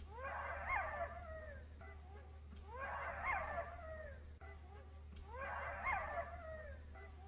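A dog whining in three drawn-out calls about two and a half seconds apart, each with a quick rise and fall in pitch, over a steady low hum.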